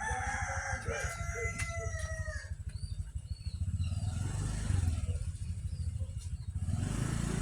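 A rooster crowing once, a long held call lasting about two and a half seconds, over a steady low rumble.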